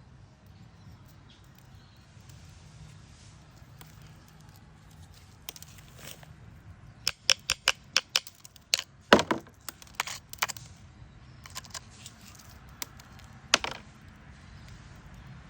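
Hard pieces clicking and knocking together as they are handled: a quick, uneven run of sharp clicks that starts about five seconds in and is busiest around the middle, with one heavier knock.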